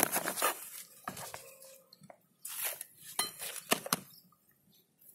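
Hands working crumbly goat manure into the soil of a plastic grow bag: scattered light clinks and knocks with short rustles of soil and leaves, dying away near the end.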